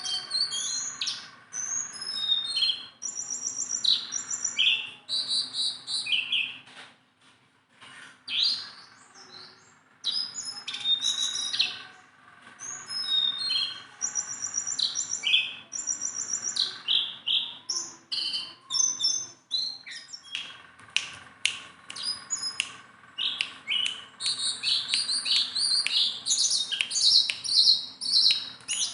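A jongkangan songbird singing a rapid, varied song of short chirps and whistled notes, with a lull about a third of the way in and busier singing toward the end.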